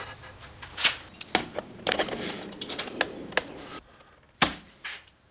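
Wooden saw handle and jig being handled on a drill press table: a string of irregular knocks, clicks and scrapes of wood and metal. A metal toggle clamp is pressed down on the handle, with one sharp clack about four and a half seconds in.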